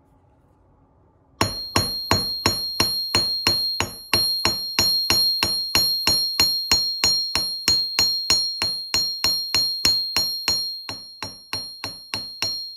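Hammer blows flattening the end of a 12-gauge copper wire on an anvil, about three strikes a second, each setting off a high ring from the anvil. The blows start a second or so in and grow lighter near the end.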